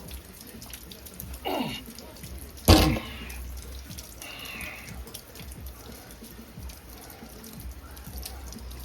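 Rain dripping steadily, with a few short sharp knocks. The loudest knock comes just under three seconds in.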